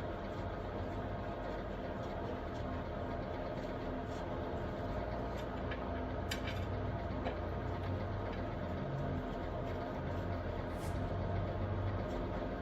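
A steady mechanical hum with a few faint clicks and one sharper tap about six seconds in.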